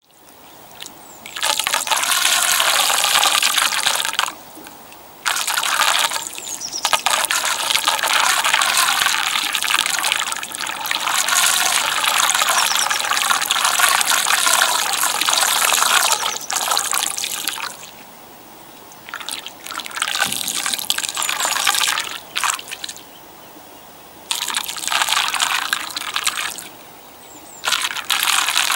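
Floodwater whirling down a small round drain hole, gurgling and sucking air in spells of several seconds each, with quieter breaks between them.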